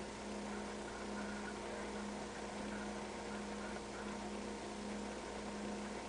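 A steady low hum with a faint hiss underneath; no distinct events.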